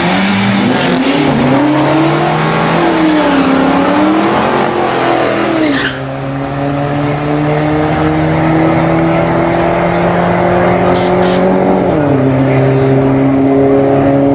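Car engine revving, its pitch rising and falling over the first few seconds. The sound changes abruptly about six seconds in, then the engine holds a steady pitch and drops to a lower one about twelve seconds in.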